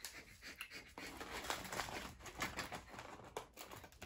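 Faint rustling and tapping of a cardboard box and wrapped snack packets being handled as a hand rummages inside the box: irregular small clicks and crinkles.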